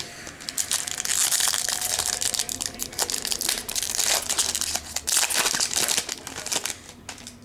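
Plastic trading-card pack wrapper crinkling and crackling as it is handled, torn open and crumpled, with a dense run of sharp crackles that dies away about a second before the end.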